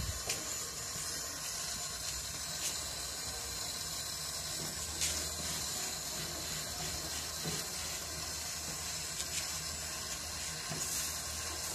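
Steady sizzling hiss from sirloin roasting on a gas grill's rotisserie over lit burners, with a few faint pops scattered through it.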